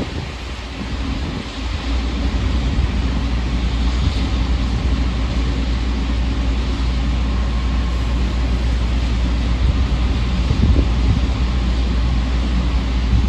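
Steady low rumble of a ship's engine heard from on deck, with wind buffeting the microphone.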